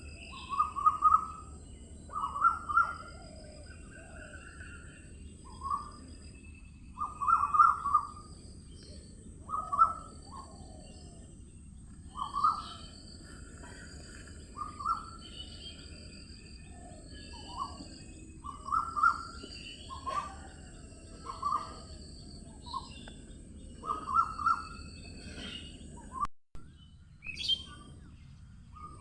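Wild birds calling, one bird repeating a short call roughly every two seconds while others chirp higher, over a steady high hiss of background noise. The sound cuts out completely for a moment near the end.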